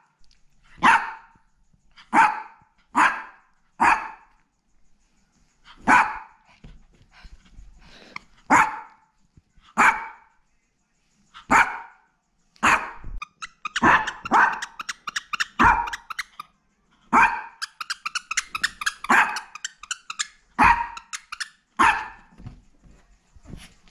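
Black teacup poodle barking in short, sharp barks, one every second or two, coming faster in the second half. The barking is the dog's angry protest at having its favourite plush toy taken away.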